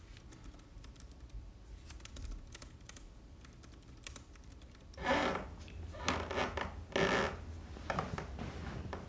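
Fingers typing on a laptop keyboard, quick light key clicks. From about five seconds in, four louder, longer noises of half a second or less break in over the typing.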